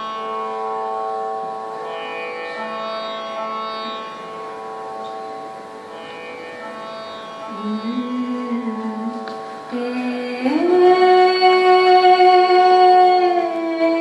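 Slow South Asian-style song: steady sustained accompaniment tones that change note every couple of seconds, then a woman's voice enters low about halfway through and, a few seconds later, slides up into a loud long held note.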